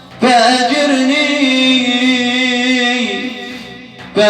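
Male voice chanting a religious praise poem (madih) in maqam Huwaizawi, holding one long wordless melismatic note with a slight waver that fades away, then starting a new note near the end.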